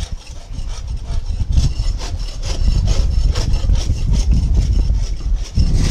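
Rapid, irregular scraping strokes over a heavy low wind rumble on the microphone.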